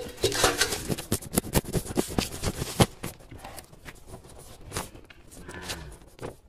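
Crackling and rustling of banana leaves, with many short sharp clicks during the first three seconds, as a large raw animal stomach is handled on them. It is quieter after that while a knife slices into the stomach wall.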